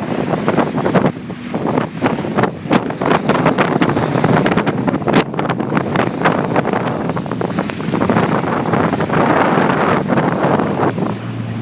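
Wind blasting across the microphone and seawater slapping and splashing as a jet ski runs through rough, choppy waves. There is a constant rush with frequent sharp gusts and hits.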